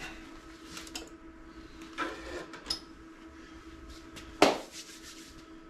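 Handling noises as a box is opened: a few light clicks and a short rustle, then one sharp knock about three-quarters of the way through, over a faint steady hum.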